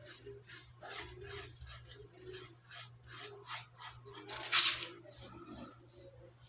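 Small paintbrush bristles rasping against a wall in quick back-and-forth strokes, about two to three a second, with one louder scrape about four and a half seconds in.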